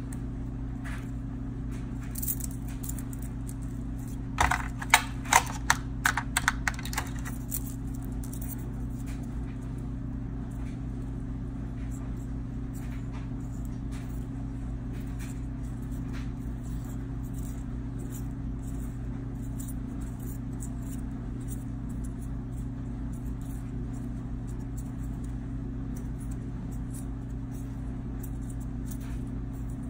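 Steel feeler gauge blades on a ring clinking against one another as they are fanned and handled, with a quick run of about a dozen clinks a few seconds in and a few light ticks later. A steady low hum runs underneath.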